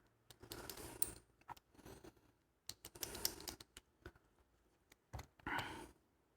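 Faint small metallic clicks and brief scrapes of hand tools working at the opened American Series 30 padlock, prying at a small internal pin.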